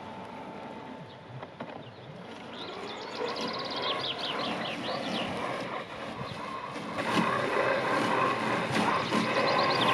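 WORX Landroid robotic lawn mower running, its steady motor noise growing louder and stepping up about seven seconds in. Birds chirp in quick falling runs.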